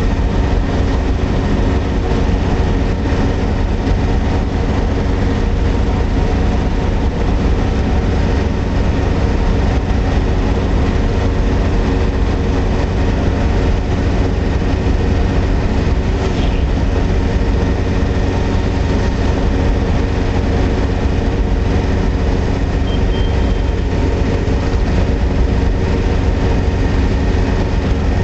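Truck engine running steadily at highway cruising speed, a constant low drone at an unchanging pitch under road and tyre rumble, heard from inside the cab.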